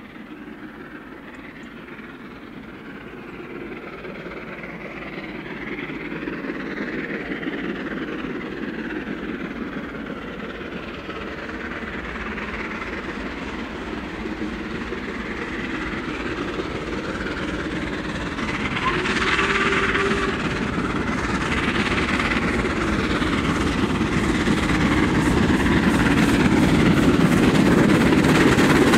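Steam locomotive hauling a train of coaches, approaching under steam and growing steadily louder. Its exhaust and the clatter of wheels on the rails become plainer as it draws close near the end.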